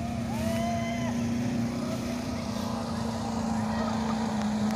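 Off-road jeep engines running steadily as the jeeps drive through a shallow river, with water splashing around the wheels.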